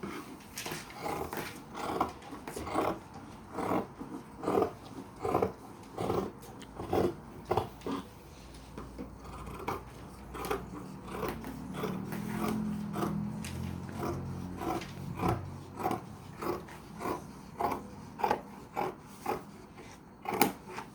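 Fabric shears cutting cloth on a table: a steady run of crisp snips, about two a second. A low droning tone joins in for a few seconds in the middle.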